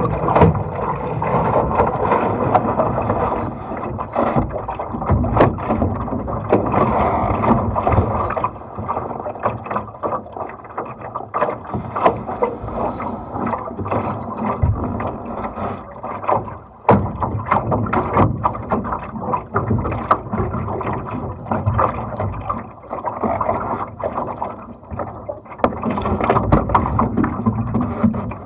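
Water rushing and splashing along the hull of a small sailing dinghy under way, with frequent sharp knocks throughout.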